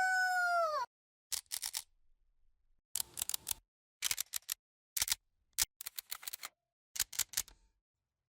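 A short pitched electronic tone that bends downward and stops, then about six quick clusters of sharp clicks, spaced roughly a second apart.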